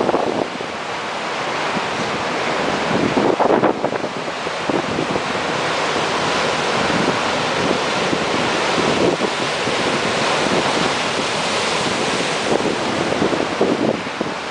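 Heavy storm surf breaking and rushing over a rocky shore, a steady wash of noise, with wind gusting on the microphone now and then.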